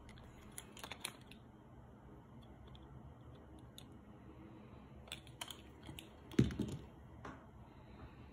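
Handling noise from hard jointed swimbait lures: scattered light clicks and taps, with one louder, duller knock about six and a half seconds in.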